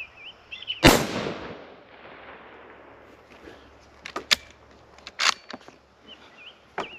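A single unsuppressed rifle shot from a bolt-action .17 Hornet about a second in, its sharp report echoing away over about a second. A few sharp clicks follow around four to five and a half seconds in.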